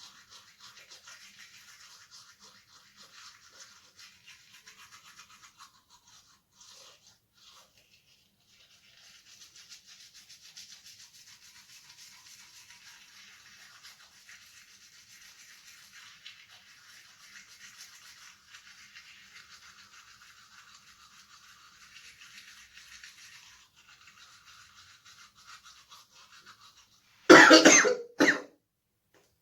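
A man with COVID-19 coughing twice, loud and sharp, near the end, after a long stretch of faint hiss. The coughs are a symptom of his COVID-19 infection.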